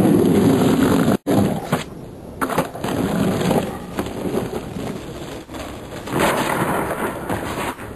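Skateboard wheels rolling over rough pavement, picked up by a camcorder microphone. The audio cuts out completely for a moment about a second in.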